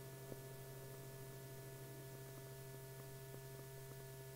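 Faint steady hum and hiss with scattered faint clicks, one a little louder about a third of a second in: the unmodulated soundtrack at the end of an old 16 mm film.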